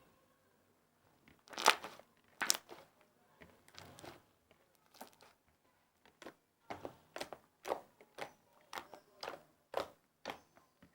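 Orange fluffy slime made with shaving foam being squeezed and stretched in the hands, giving a series of sharp pops and crackles. Two loud pops come about two seconds in, then a quicker run of about two a second later on.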